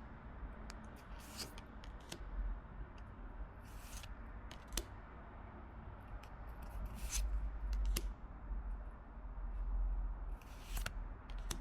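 Pokémon trading cards being handled: scattered small clicks and brief papery rustles and slides as cards are flicked through and laid down.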